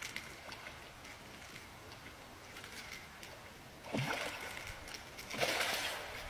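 A large hooked fish thrashing at the surface of the water near the bank, splashing twice: once about four seconds in and again, louder, about a second and a half later.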